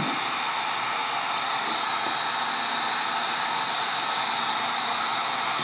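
Full-size heat gun blowing steadily, the even rush of its fan and heater with a faint steady whine in it, as it shrinks heat-shrink tubing over an XLR connector's solder joints.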